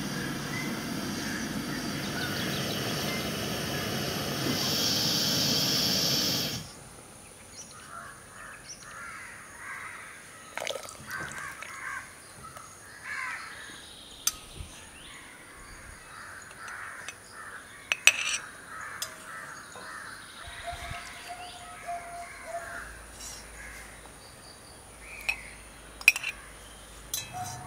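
Brine boiling hard in a pot on a portable gas burner, a steady hiss and bubbling that cuts off about six seconds in. After that, birds call repeatedly in the background, and near the end a steel spoon clinks a few times against the pot and a glass jar.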